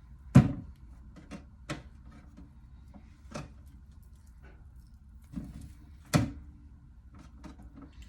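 Kitchen clatter: a handful of separate knocks and clunks from things being handled and set down, the loudest about half a second in and another strong one about six seconds in.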